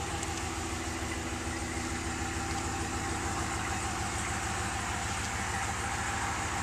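2011 Ram 1500 pickup's engine idling steadily, an even low running sound.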